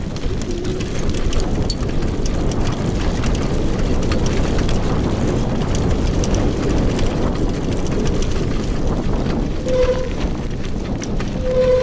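All-terrain wheelchair (FTT) rolling fast down a bumpy dirt-and-grass track: wind rushing over the microphone, with tyres crunching and the frame rattling over the ground. Two short squeals near the end.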